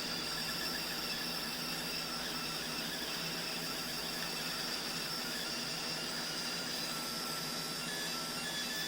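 Laser engraving machine running while it engraves an aluminium part: steady machine noise with a constant high whine. A few short higher tones sound near the end.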